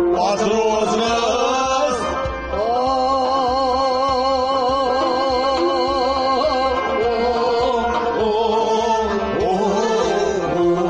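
Kashmiri Sufi devotional song: long, wavering held notes over a steady rhythmic accompaniment.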